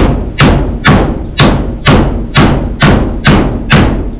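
Hammer blows on a wooden shelf post, about two strikes a second, nine in a row and even in loudness, stopping near the end.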